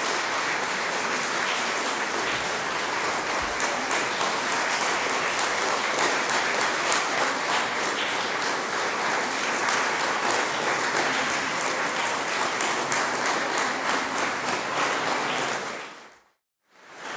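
Audience applauding steadily for a long stretch, then fading out to silence near the end.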